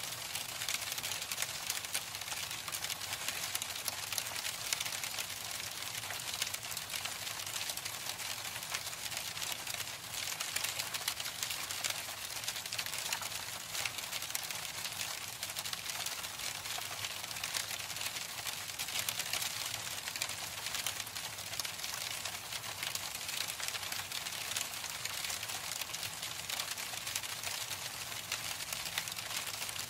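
Hailstones pelting a hard surface: a dense, steady patter of many small ticks.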